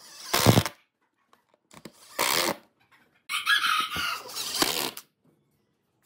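Cordless drill running in three short bursts as it drives wood screws into a pine board, the third burst the longest.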